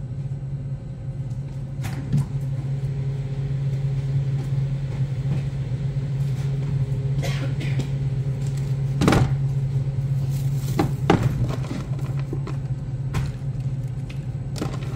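Steady low hum of commercial kitchen equipment, broken by a few short knocks, the loudest about nine and eleven seconds in.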